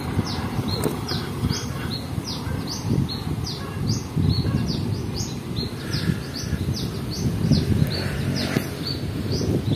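A bird calling over and over, short high chirps that sweep downward, two or three a second, over a steady low rumble.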